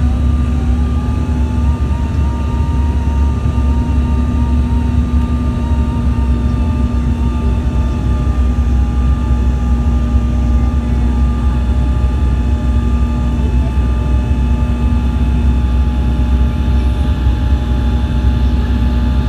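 Passenger airplane's engines running: a steady, loud low drone with faint whining tones above it, one of which wavers slightly in pitch.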